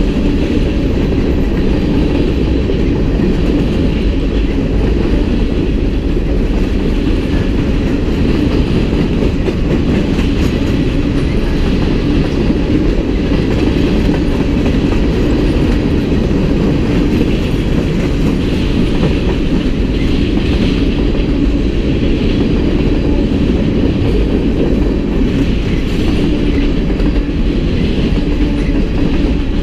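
Freight cars of a CSX train rolling steadily past close by: a loud, even rumble of steel wheels on the rails.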